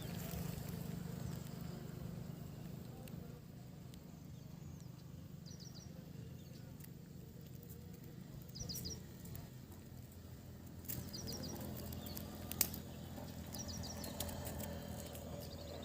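A small bird chirping in quick runs of three or four high notes, repeated every few seconds over a low steady outdoor rumble. A single sharp click comes about two-thirds of the way through.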